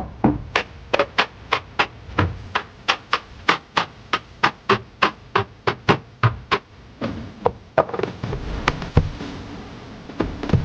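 Groceries and drink containers being set down and arranged on refrigerator shelves: a quick run of light taps and clicks, about three a second, some with a duller knock, and a stretch of rustling handling about seven seconds in.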